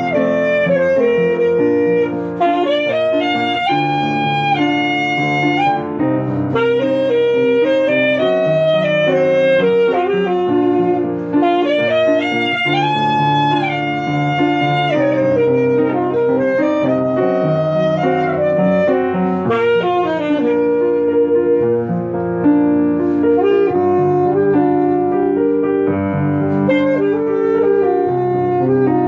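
Alto saxophone playing a melody of held notes over grand piano accompaniment, as a duet.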